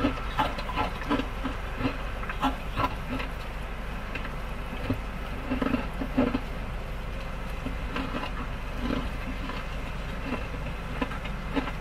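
Car driving, heard from inside the cabin: a steady low road rumble with irregular small knocks and rattles.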